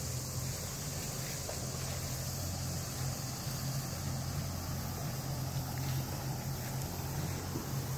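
Steady low hum of a distant engine, unchanging throughout.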